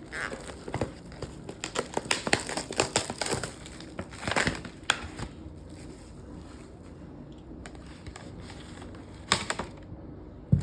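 Food packaging and kitchen items being handled: irregular crinkling and clicking, busiest in the first half, with two sharper knocks near the end.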